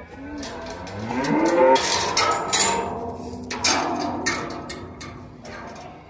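Heifers mooing: one call rising in pitch over the first two seconds. Then a clatter of sharp knocks and rattles that fades toward the end.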